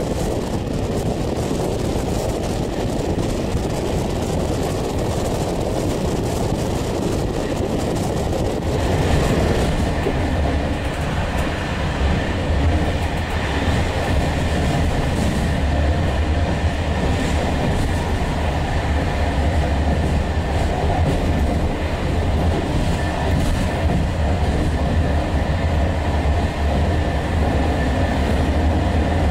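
Passenger train running along the track: wheel and rail noise mixed with rushing air at an open coach window. About nine seconds in, the sound changes to a deep, steady rumble heard from inside the coach behind the glass.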